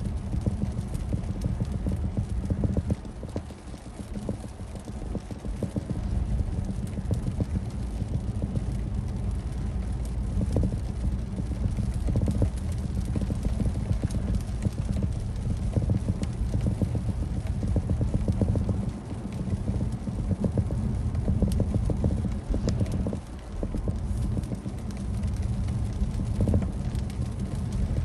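Road noise heard inside a car driving on a wet road: a steady low rumble with many small, irregular taps.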